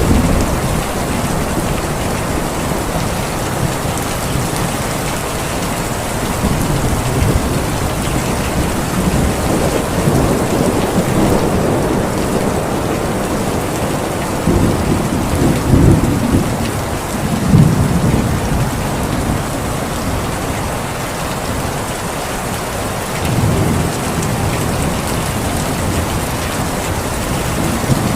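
Steady rain falling, with low rolling thunder swelling up several times about halfway through and once more near the end.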